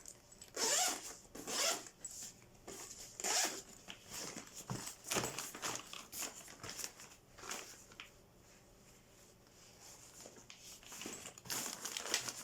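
Zippers on a soft cooler bag being pulled in short strokes, with the bag's fabric rustling as it is handled; the strokes pause briefly about two thirds of the way through, then start again near the end.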